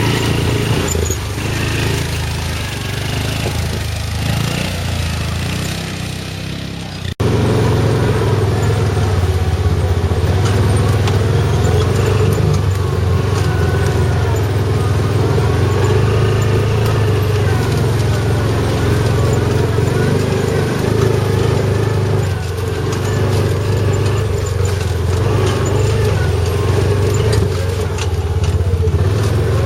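Yamaha Rhino side-by-side engine running steadily under way. It drops out for an instant about seven seconds in and comes back louder.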